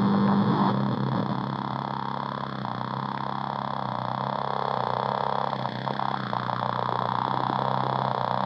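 Effects-processed electronic drone from a K176LA7 (CD4011-type) CMOS NAND-gate oscillator played by hand: a steady low hum with a rough, flickering texture above it that shifts over time.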